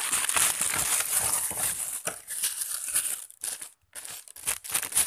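Plastic packaging crinkling as it is handled, with dense rustling for about two seconds, then shorter separate rustles.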